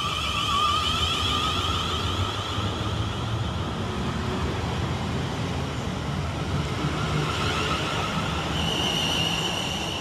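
Siemens Class 450 Desiro electric multiple unit pulling out of the station: a steady electric whine of traction motors with high tones over the rumble of wheels on rail. About eight seconds in, a new high tone settles in as the train gathers speed.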